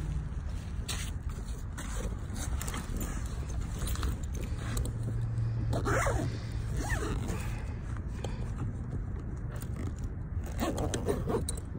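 Phone handling noise: fabric rustling and scraping against the microphone in irregular bursts, over a low steady hum.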